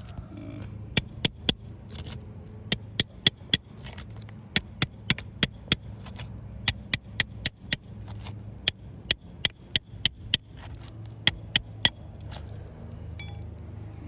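Hammer tapping the end of a steel flat pry bar that is wedged under a three-tab asphalt shingle, working it under the tab to free the nails so the shingle can be lifted. About thirty sharp metallic taps in quick runs of two to four, over a steady low hum.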